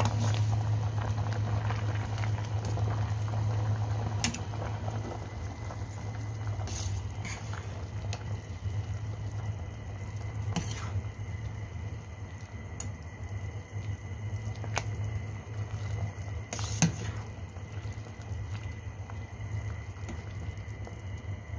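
A pot of soup at a rolling boil, bubbling and spattering steadily over a low, even hum. A few sharp clicks stand out, the loudest about seventeen seconds in.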